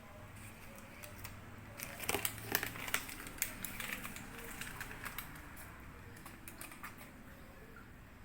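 Parchment paper crinkling and crackling as it is peeled off a freshly baked cake, in irregular bursts that are busiest a couple of seconds in, then thin out.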